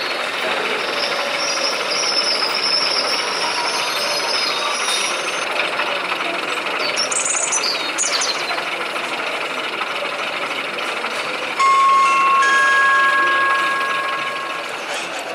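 Steady background hubbub of a busy exhibition hall. About twelve seconds in, a model train's two-tone horn sounds, two notes held together for about three seconds.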